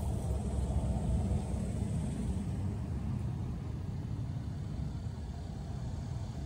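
Steady low outdoor rumble with no distinct strokes or knocks.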